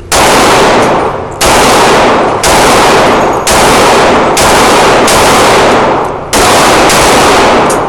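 Taurus Millennium .45 ACP pistol fired in a steady string of about six shots, roughly one a second. Each shot is very loud, overloads the microphone, and echoes for most of a second.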